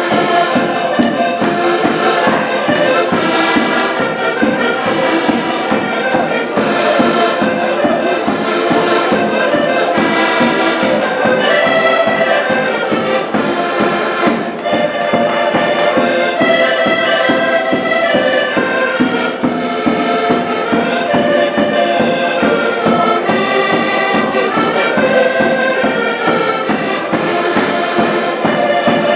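An ensemble of several accordions playing a traditional Portuguese tune together, sustained chords over a steady rhythmic pulse.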